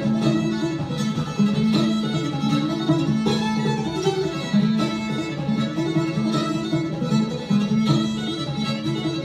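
Old-time fiddle and banjo duet: the fiddle bows a lively tune in a steady run of short notes while the banjo picks along underneath.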